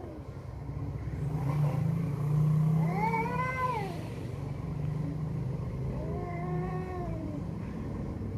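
Two tomcats in a standoff yowling: a long rising-and-falling yowl about three seconds in, and a lower, drawn-out one near the end. A low steady drone runs underneath.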